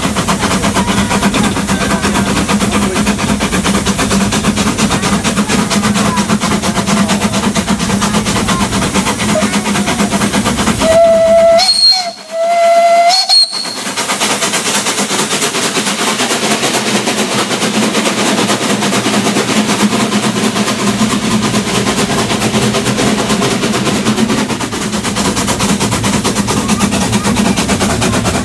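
Steam tram locomotive running, heard from its open cab: a steady, rapid rattling beat from the engine and running gear. About halfway through, the steam whistle sounds two blasts with a short break between them.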